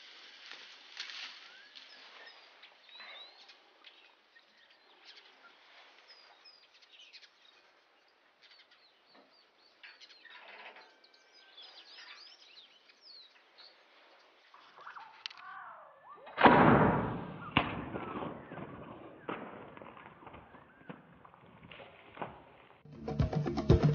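Faint birds chirping over quiet outdoor ambience. About sixteen seconds in comes a sudden loud rustling with knocks, which fades over a few seconds.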